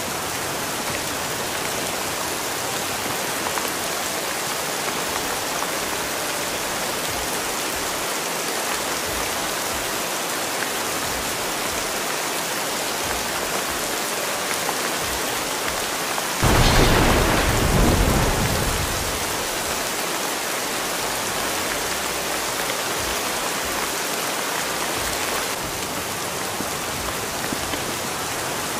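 Steady rain falling, with a clap of thunder that breaks in suddenly a little past halfway and rumbles away over about three seconds.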